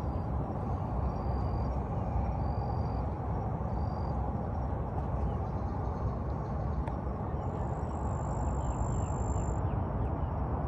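Steady low outdoor rumble at the lakeside, with a few faint high chirps in the first few seconds and a thin high note held for about two seconds near the end.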